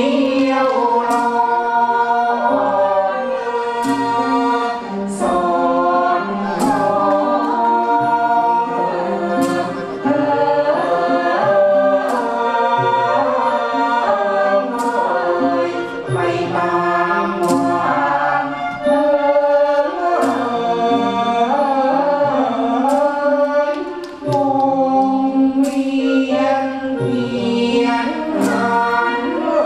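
Khon dance-drama music: a chorus singing a flowing melody over orchestral accompaniment, with sharp percussion strikes every second or few.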